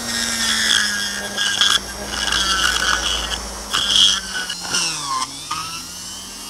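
Hand-held electric rotary tool (Dremel-type) with a milling bit running with a steady whine while the bit grinds and scrapes in uneven bursts against the inside of a hazel-wood cup. Near the end its pitch dips and recovers briefly, and then it runs freely with the bit out of the wood. The cutter takes out only a few chips.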